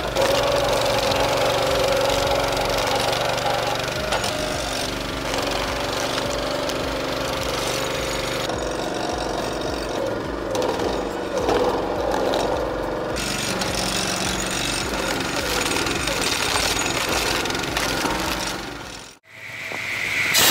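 Small petrol engine running steadily, driving the hydraulic pump of a portable homemade log splitter as a log is pressed onto the splitting wedge. Near the end the sound cuts off for a moment and a steady hiss begins.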